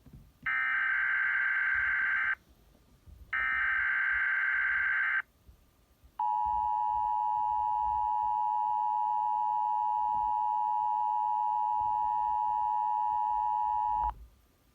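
NOAA Weather Radio alert: two buzzy bursts of SAME digital data tones, about two seconds each, then the steady alarm tone held for about eight seconds before cutting off. It announces the broadcast of a tornado watch.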